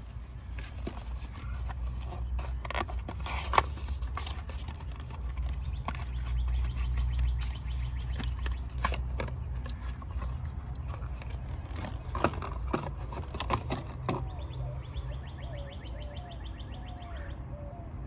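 Birds chirping over a steady low hum, with scattered sharp clicks and knocks, the loudest about three and a half seconds in. The chirping is clearest in the last few seconds.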